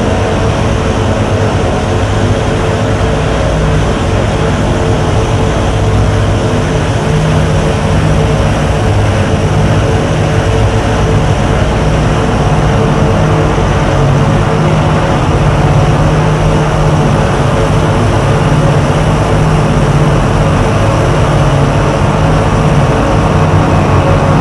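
Loud, unbroken harsh noise from contact microphones on a calculator being rubbed against sandpaper and on an angle grinder cutting through a car tire. It is a rough scraping texture over steady drones, with the low drone growing stronger about halfway through.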